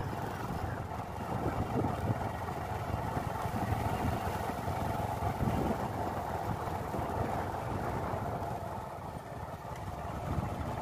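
A vehicle running steadily while driving along, engine and road noise heard from on board, with a constant mid-pitched drone.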